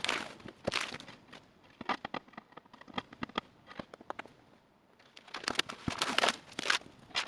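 Small handling noises: a run of light clicks and taps with rustling, easing off a little past halfway and then growing denser near the end.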